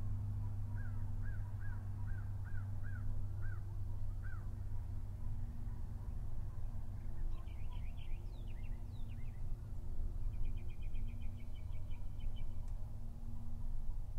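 Wild birds calling outdoors. About eight short repeated chirps come in the first few seconds, then a burst of higher notes around the middle, then a fast trill, all over a steady low hum.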